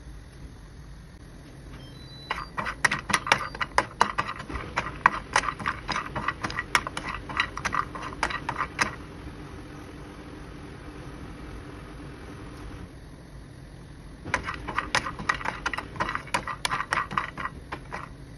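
Whole nuts (walnuts, almonds, cashews) clattering and skittering in a nonstick frying pan as they are stirred with a wooden spatula during dry roasting. The rapid clicking comes in two bouts of several seconds each, with a steady low background between them.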